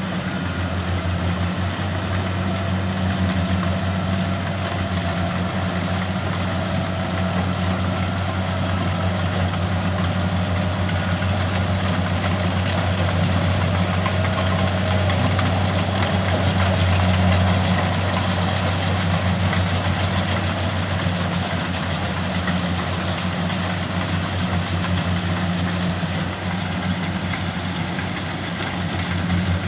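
Engine of a rice combine harvester running steadily, a continuous low hum with a mechanical clatter over it.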